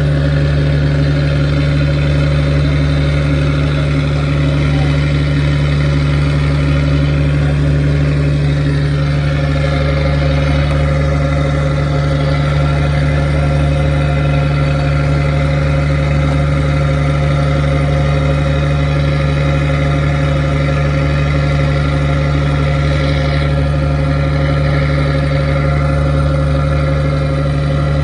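A fishing boat's inboard engine running steadily at an even speed, with a deep, constant hum.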